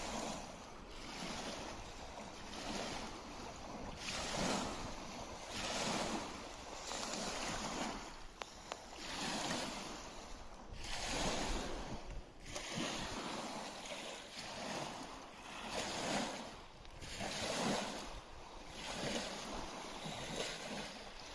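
Small lake waves lapping on the shore of Lake Motosu, a wash of water that swells and falls back every second or two.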